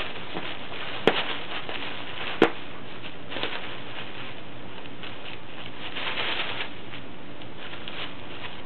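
Bubble wrap crinkling and rustling as two small dogs nose and paw at it, with two sharp pops about a second and a half apart in the first few seconds, the second the louder.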